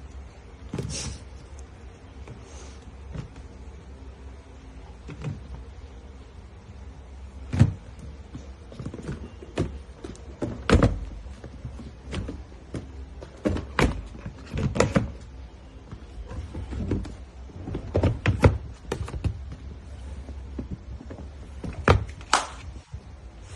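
Irregular knocks and clunks of hard objects being handled, a dozen or so spread unevenly, over a steady low hum.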